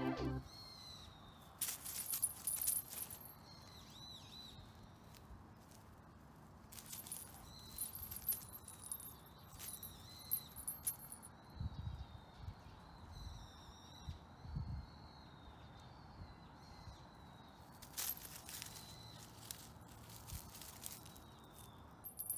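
Dry leaves and grass rustling in short crackly bursts, three times, as a feathered cat-teaser toy on a wand is dragged across the ground and a kitten pounces at it. A faint steady outdoor background lies beneath.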